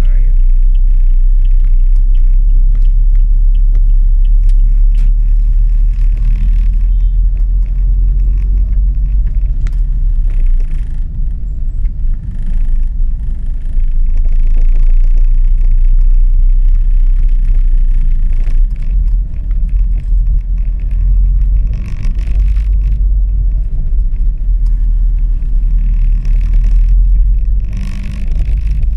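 Inside a car moving slowly through city traffic: a steady low rumble of engine and road, heard through the cabin.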